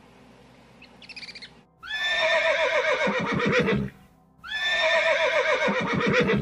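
A horse whinnying twice. Each whinny lasts about two seconds, starts high, then wavers and falls in pitch. A faint, brief high trill comes before them, about a second in.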